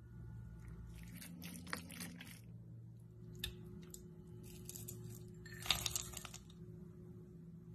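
Kitchen handling sounds as ingredients go into a ceramic mixing bowl: a few rustling, scraping bursts and a sharp tap. The loudest is about six seconds in, as ground nuts pour into the bowl. A steady low hum runs underneath.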